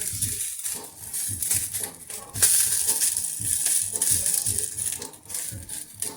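Sausages and meatballs sizzling and crackling in a hot frying pan, a steady hiss that swells about two and a half seconds in.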